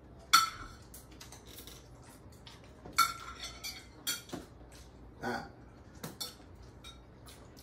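Forks and spoons clinking and scraping on dinner plates during a meal. There is a string of sharp, ringing clinks, the loudest about half a second in and another at three seconds.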